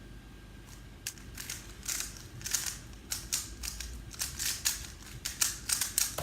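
3x3 Rubik's Cube being turned rapidly during a timed solve: a fast, irregular run of plastic clicks and clacks from the layers turning, starting about a second in.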